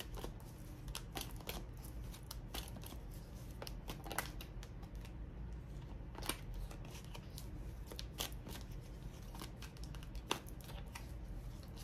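A deck of tarot cards being shuffled by hand: irregular soft snaps and slaps as cards drop onto each other, a few every second, over a low steady hum.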